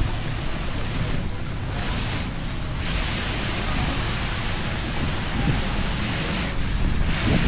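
Steady hiss of heavy rain, rising and easing every few seconds, with lo-fi music mixed in underneath.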